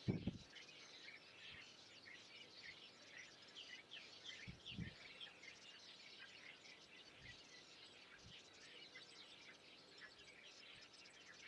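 Faint chorus of many songbirds chirping at once, a steady scatter of short high chirps. A low thump at the very start is the loudest thing, with a couple of softer low bumps later.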